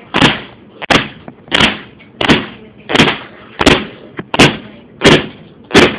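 Repeated hard blows on a laptop hard drive, about nine sharp whacks at an even pace of roughly one and a half a second, as it is smashed open.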